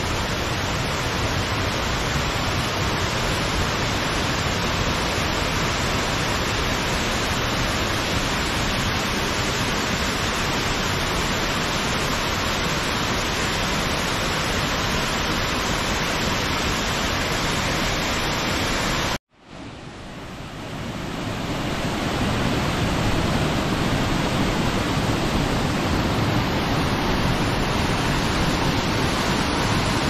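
Waterfall pouring over rock into a pool: a steady rush of water. About two-thirds of the way through it cuts out for a moment and fades back in over a couple of seconds, heavier in the low end afterwards.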